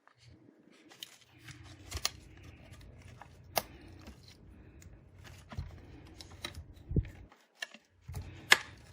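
Plastic hard-drive enclosure being handled and pried apart: irregular small clicks, taps and scraping of plastic parts, with a few sharper snaps of the case clips.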